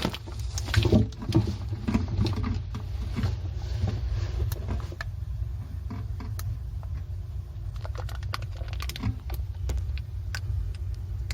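Shoes in a mesh laundry bag being handled and loaded into a washing machine drum: scattered clicks, knocks and rustling, busiest in the first few seconds and again near the end, over a steady low hum.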